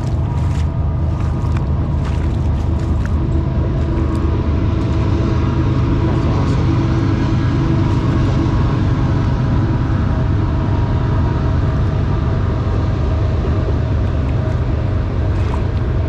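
Train going past on a railroad track: a loud, steady rumble with a droning hum that swells slightly midway.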